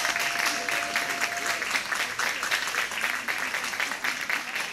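Audience applauding, many hands clapping steadily, tapering slightly near the end.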